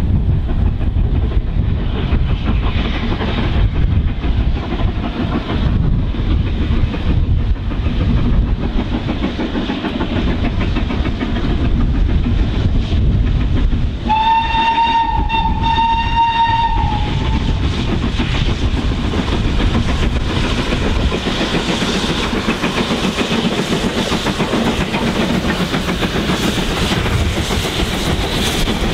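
Steam-hauled train passing, with a steady rumble of locomotives and coaches on the rails. About halfway through, a steam whistle sounds once, one steady tone held for about three seconds. Later the sound turns harsher and hissier as a steam locomotive works hard past.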